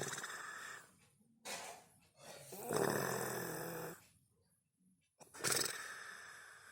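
A woman snoring in her sleep: four noisy snoring breaths with short quiet gaps between them, the longest and loudest about two to four seconds in.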